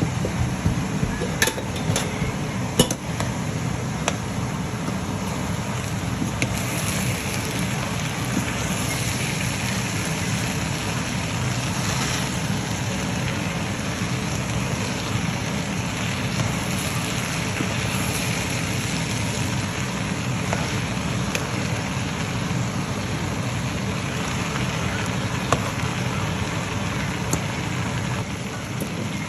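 Hot oil sizzling steadily in a pan as food fries, with a few sharp clicks of a utensil against the pan in the first three seconds.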